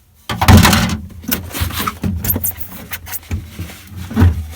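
Plastic cover panel inside a refrigerator being worked loose and pulled away: a sudden loud scraping rush about a quarter second in, then a run of clicks and knocks as the panel is handled.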